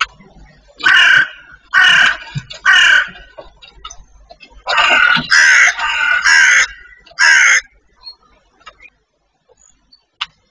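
Eurasian magpies chattering: three harsh calls about a second apart, then a quicker run of four or five harsh calls.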